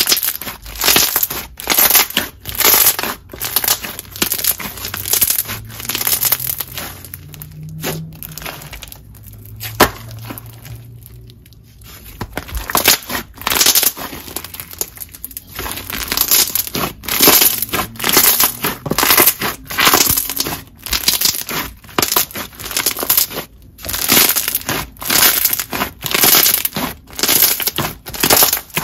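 Clear glue slime mixed with fishbowl beads and Bingsu beads being kneaded and pressed by hand: a quick, irregular run of wet crunches and bubble pops.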